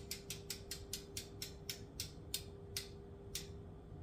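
DT Swiss 350 rear hub freehub with a 36-tooth star ratchet clicking as it coasts down: about a dozen crisp clicks that slow from about five a second to one every half second, then stop about three seconds in.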